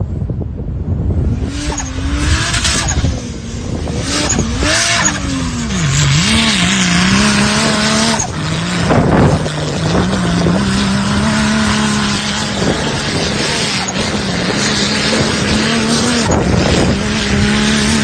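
Off-road vehicle engine revving hard, its pitch wavering for the first several seconds and then held high and steady, over a loud rushing noise of tyres and terrain.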